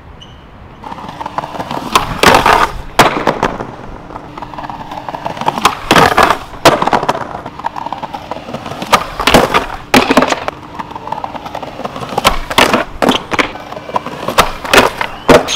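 A skateboard rolling over stone paving, broken by about a dozen sharp, irregular clacks of the board and its wheels hitting the ground, as tricks on a concrete ledge are attempted.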